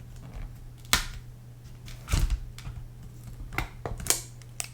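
Sharp plastic-and-metal clicks and knocks as an old MacBook Air battery pack is pried up and lifted out of the laptop's aluminium case, about five separate knocks with a low steady hum underneath.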